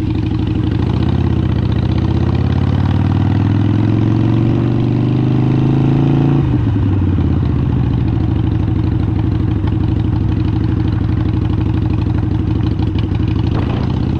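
Harley-Davidson Sportster 883 Iron's air-cooled V-twin engine running. Its revs climb steadily for a few seconds, drop abruptly about six seconds in, then hold steady at a lower pitch.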